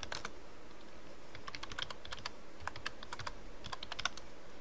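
Typing on a computer keyboard: quick bursts of key clicks separated by short pauses.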